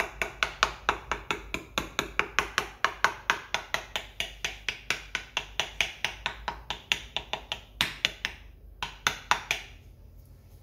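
A metal fork pricking pastry dough in a ceramic tart dish, a fast, even run of sharp clicks, about five a second, as the tines strike through the dough onto the dish. This is docking the shortcrust base. The run stops about eight seconds in, followed by a couple of single taps.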